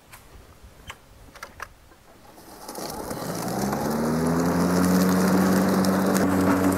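Battery-powered 40-volt cordless lawn mower: a few light clicks, then about two and a half seconds in the electric motor spins up with a rising hum and settles into a steady run. It is set to mulch, the discharge closed so the blade chops up dry leaves.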